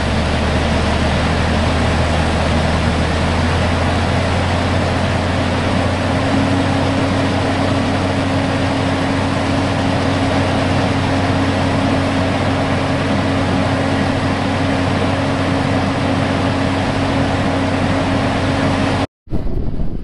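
Heavy diesel engine running steadily with a deep hum, a higher tone joining about six seconds in. It stops abruptly near the end.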